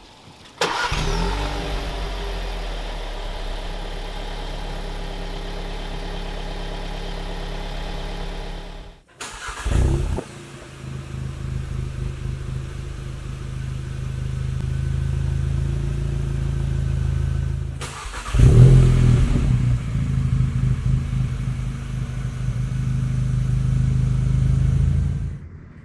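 A stock Volkswagen Jetta's 1.4-litre turbo four-cylinder through its factory exhaust, a quiet exhaust, heard in three short cut-together clips. About half a second in it fires up with a brief flare and settles to a steady run. Then comes a second clip that swells slowly, and about two-thirds of the way in a third that comes in louder and holds steady.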